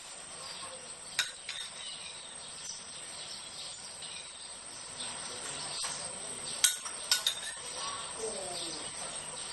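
Food sizzling in a pan, with a few sharp clicks of a utensil against the pan, three of them close together near the end.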